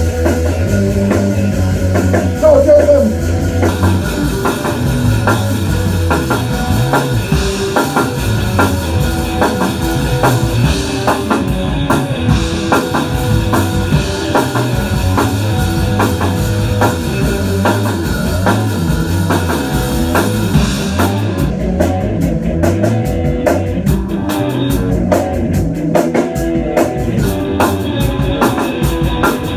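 A rock band playing live in a rehearsal room: electric guitars, bass and a drum kit. About two-thirds through, the cymbals fall away for a stretch while the guitars and bass carry on, and they return near the end.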